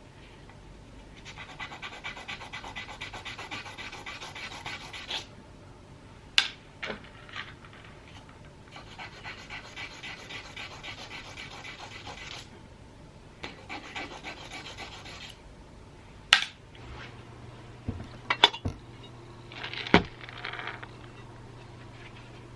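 Rapid rubbing strokes polishing small brass-plated steel screws, in three spells of a few seconds each. Sharp clicks come in between, and a low steady hum starts near the end.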